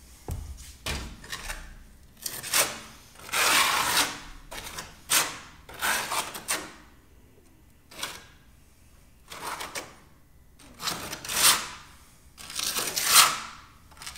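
A metal mud knife scraping as it spreads furnace cement and fireplace mortar over a cracked firebox floor, working it into the cracks. There are a dozen or so strokes at uneven intervals, some short and some lasting close to a second.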